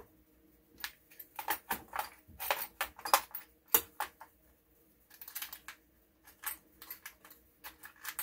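Hex keys and small metal tools clattering in a plastic tool tray as a hand sorts through them for the right size, a run of irregular sharp clicks and rattles with a short lull in the middle.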